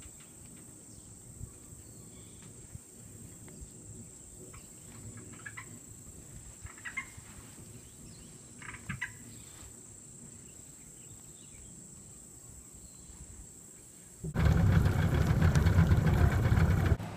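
Quiet woodland ambience with a steady high insect drone and a few brief bird chirps. About fourteen seconds in, it cuts to a boat's outboard motor running, much louder.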